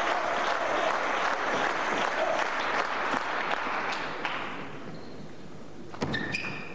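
Arena crowd applauding after a table tennis point, dying away after about four seconds. Near the end comes a sharp knock and a few brief high-pitched sounds.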